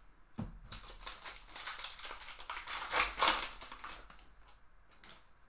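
A pack of baseball cards being handled: a knock about half a second in, then crinkling and rustling of the pack wrapper and cards with many small clicks. It is loudest around three seconds in and dies away near the end.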